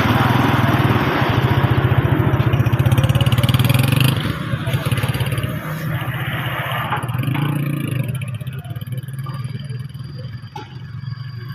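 Honda CG125's single-cylinder four-stroke engine running loud with rapid, even exhaust pulses, then dropping suddenly to a quieter run about four seconds in. It rises briefly again around seven seconds in and fades lower near the end.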